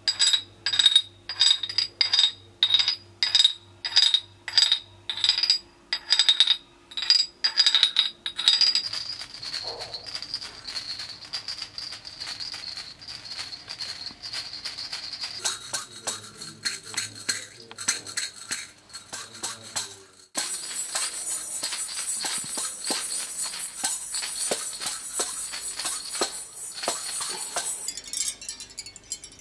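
Handmade ceramic percussion: a clay instrument knocked in an even beat of about two strokes a second for the first nine seconds, then a pair of clay maracas shaken in a continuous rattle. From about twenty seconds in, a denser, brighter clinking of many small ceramic pieces, like a clay wind chime.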